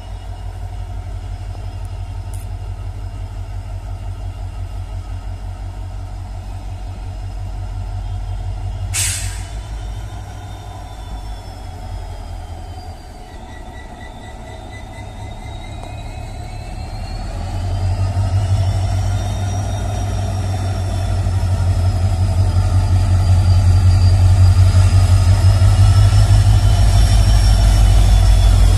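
Diesel locomotive of a passenger train drawing slowly closer and passing, its engine's low pulsing rumble growing louder toward the end. A short sharp hiss comes about nine seconds in, and from about halfway through high wavering metallic squeals from the train's wheels and brakes rise and fall.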